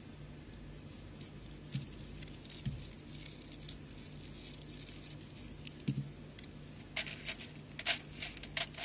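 Small beads clicking and rustling as they are handled and strung on fishing line, scattered at first and then a run of quick clicks near the end, over a faint steady low hum.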